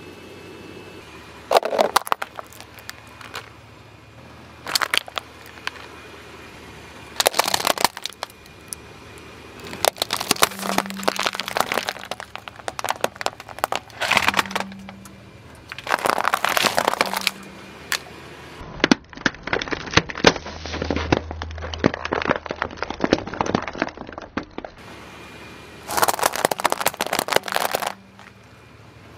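A car tyre rolling over and crushing small plastic objects such as bead necklaces and toys, giving repeated bursts of cracking and crackling, one crush after another with short pauses between.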